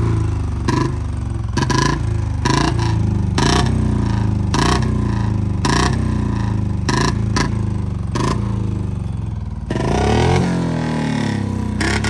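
Royal Enfield Bullet single-cylinder engine idling unevenly, with a sharp crack from the exhaust about once a second: the engine is missing, which the owner puts down to low fuel or a fault in the exhaust-popping ('crackers') setup. Near the end it revs up as the bike pulls away.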